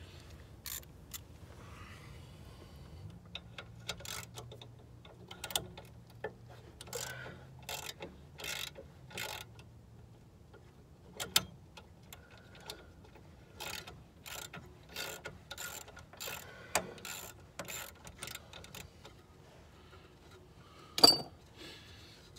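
Hand tools working on a car's rusty front suspension: irregular metallic clicks and clinks, with a sharp metal clank about a second before the end.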